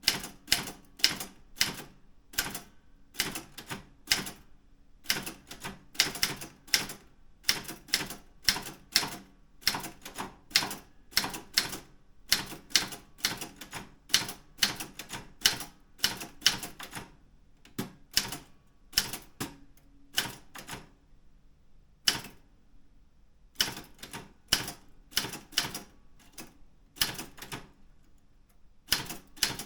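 Daro Optima M16 typewriter being typed on: sharp key strikes in quick, uneven runs of about three to four a second, broken by short pauses about two-thirds of the way through and again near the end.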